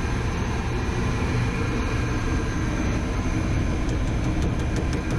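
AAON rooftop HVAC unit running steadily, a low hum with several steady tones from its fans and compressor. A few light ticks come near the end.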